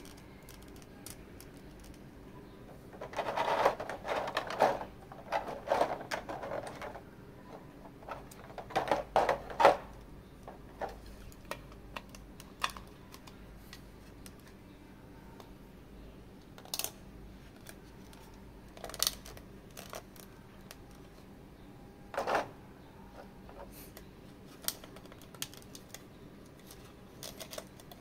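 Hands handling a metal-and-plastic collectible figure and its packaging: three bursts of quick clicking and rustling in the first ten seconds, then a few single sharp clicks.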